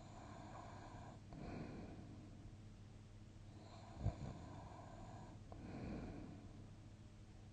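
A sleeping person breathing softly: three slow breaths about two seconds apart, with a brief snort on the middle one.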